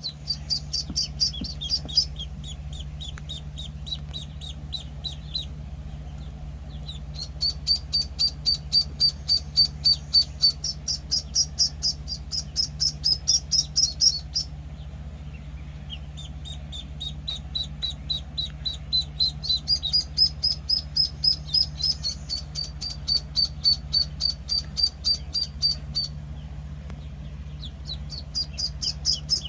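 One-week-old Call ducklings peeping: rapid high peeps, about five a second, in runs of several seconds with short pauses between them.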